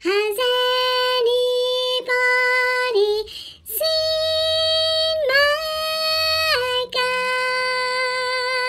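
A high, childlike solo singing voice holding a run of long sustained notes with short breaks between them, the last note wavering near the end.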